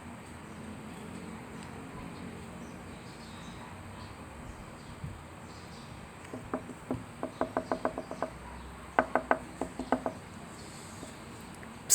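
Dog shaking itself off twice: quick rhythmic flapping, about six or seven slaps a second. The first shake lasts about two seconds and the second, louder one about a second.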